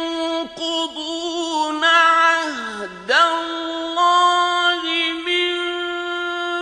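Male reciter chanting Quranic recitation in the melodic mujawwad style, holding long, high, steady notes on drawn-out vowels, with a brief swoop down and back up in pitch about halfway through.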